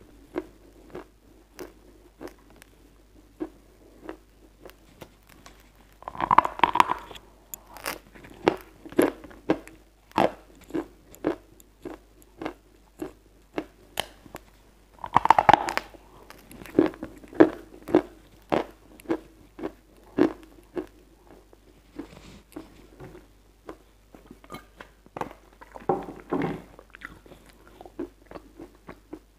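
Close-miked crunching and chewing of a lump of white edible chalk. There are three louder bites, about six seconds in, about fifteen seconds in and near the end, and quick small crunches of chewing in between.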